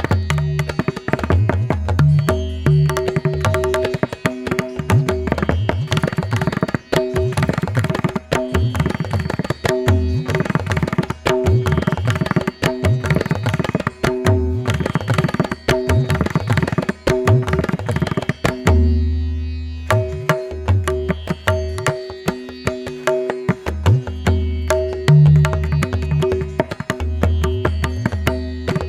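Background instrumental music in Indian classical style: tabla playing a quick, busy rhythm over a steady drone, with a short break about two-thirds of the way through.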